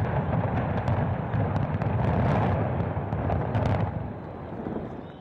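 A large arena collapsing in a demolition implosion: a continuous heavy rumble of the falling structure with a few sharp cracks on top, fading away over the last second or so.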